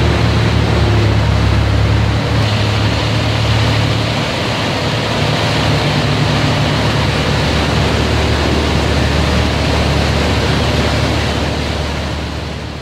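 Steady, loud machinery noise in a rice-drying plant: a low hum under a broad, even rush like fans or blowers. It shifts slightly about two seconds in and drops away near the end.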